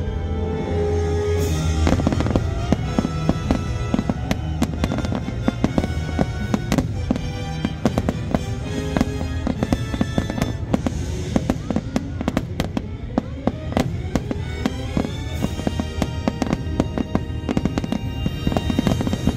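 Aerial fireworks bursting in quick succession, a dense run of sharp bangs and crackles, over music playing throughout.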